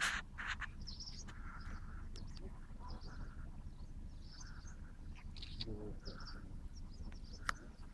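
Birds calling outdoors: short calls repeated about four times over a steady low rumble, with a few sharp knocks.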